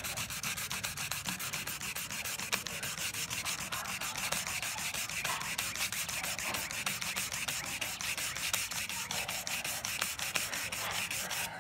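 Coarse 80-grit sandpaper rubbed by hand back and forth over a vinyl (PVC) patio door sill in quick, even strokes, grinding down a deep scratch.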